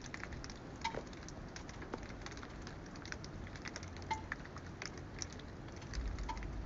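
Quiet outdoor ambience with faint, scattered ticks and light patter; no gunshot.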